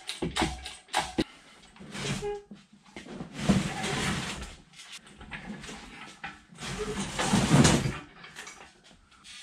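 Cast-iron Bridgeport mill ram sliding and scraping along the turret's dovetail ways as it is pulled off with an engine hoist. It comes in a few separate noisy bursts, the longest about a second.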